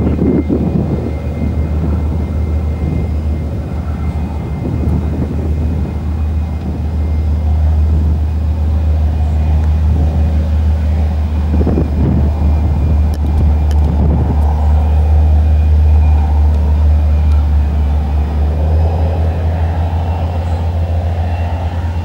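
Tank engines running as the tanks drive across a field: a loud, steady low drone.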